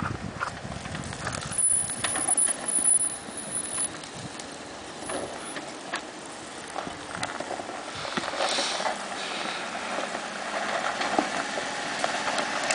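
Jeep Wrangler Rubicon crawling down off a rocky bank onto a gravel road. Its tyres crunch and knock irregularly over loose rock and gravel, over the low sound of its engine.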